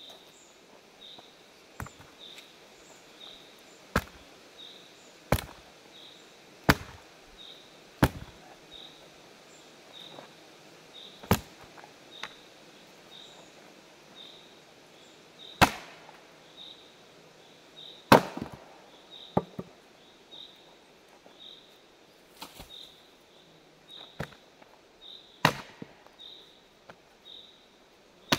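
About a dozen sharp, single knocks on wood at irregular intervals, a second to several seconds apart, the loudest just past halfway: a dead wooden snag being knocked and broken free by hand, without an axe. A faint high chirp repeats steadily underneath.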